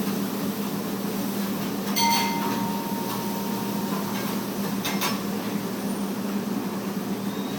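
A steady low hum, with a sharp clink about two seconds in that rings on as a clear tone for a couple of seconds, and another sharp click about five seconds in.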